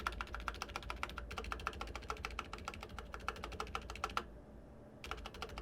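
Keys on a Mountain Everest Max mechanical keyboard with Cherry MX Red linear switches being pressed in rapid succession for a typing sound test. The clatter pauses briefly near the end, then resumes. The stabilizers are factory-lubed and clipped, and the owner judges them quiet enough to need no modding.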